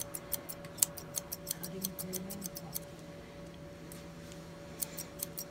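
Straight grooming shears snipping through a Lhasa Apso puppy's leg coat. A quick run of snips, about five a second, goes on for nearly three seconds, then after a pause a few more snips come near the end. A faint steady hum lies underneath.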